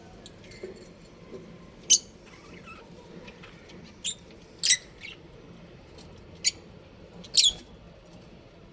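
Budgerigars giving short, sharp, high-pitched chirps, about five loud ones spaced irregularly, with fainter twitters between.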